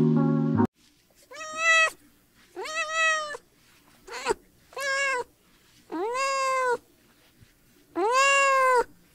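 A young kitten meowing six times in a row. Each call rises and falls in pitch, with one very short call in the middle and the longest calls near the end.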